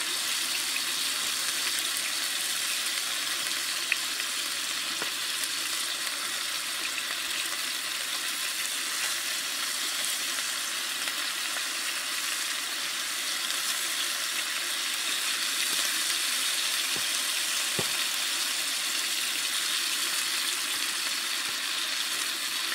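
Chicken breast searing in a cast iron skillet on a camp stove: a steady sizzle, with two small pops about four seconds and eighteen seconds in.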